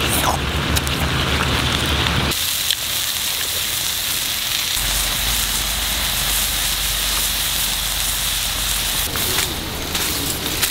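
Pig intestines frying and bubbling in a sauce in a wok over a wood fire, a steady sizzling hiss; for about the first two seconds the fire's crackle is heard under the wok.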